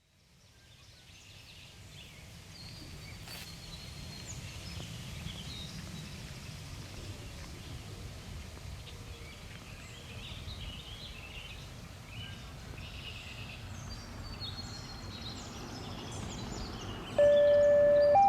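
Outdoor ambience with a low wind-like rumble and scattered bird chirps. About a second before the end, a Whelen 2910 electronic warning siren starts suddenly and loudly with a steady tone that steps up to a higher pitch.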